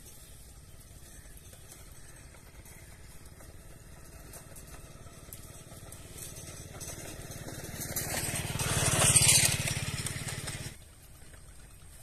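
Leafy branches of a bush rustling as they are pulled and shaken by hand. The rustling builds over a few seconds, is loudest about nine seconds in, then stops abruptly. A low steady rumble runs underneath.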